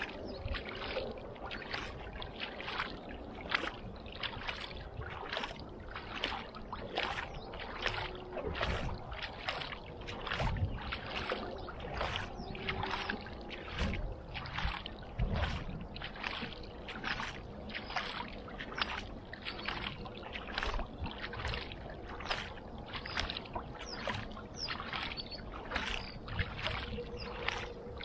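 Double-bladed kayak paddle strokes: the blades dipping and pulling through calm lake water in a steady rhythm, about three strokes every two seconds, each with a short splash and drip.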